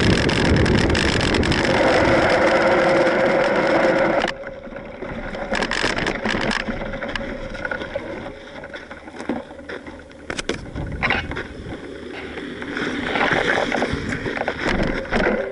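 Mountain bike riding on a gravel trail, heard from a handlebar-mounted camera: loud rush of wind and tyre noise for about four seconds, then it drops suddenly to quieter tyre crunch on gravel with the bike's rattles and clicks.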